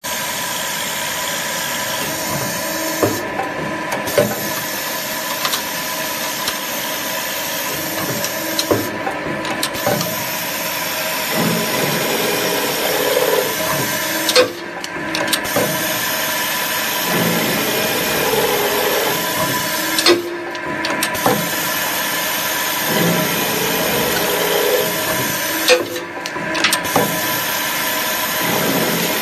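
Hydraulic double-end tube chamfering machine running: a steady motor hum and high hiss, with a repeating cycle about every six seconds in which the hiss briefly drops and clunks mark a short tube being fed, clamped and chamfered at both ends.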